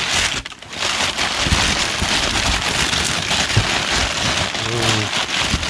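Crumpled packing paper crinkling and rustling as hands dig through a cardboard box full of it.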